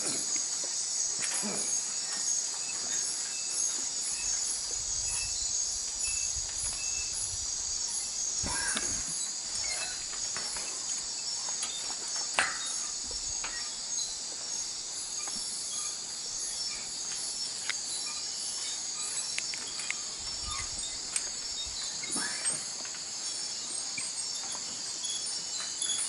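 Night-time tropical forest insect chorus: crickets and other insects keep up a steady high-pitched buzzing trill with a fine, fast pulse. A few faint knocks and clicks stand out here and there.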